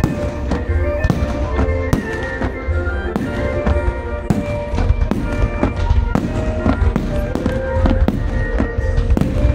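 Fireworks bursting in rapid succession, many sharp bangs a second over a deep rumble, with the display's music playing loudly underneath.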